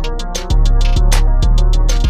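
Background music with a steady electronic beat, about two heavy bass hits a second; it dips briefly at the start and comes back in full about half a second in.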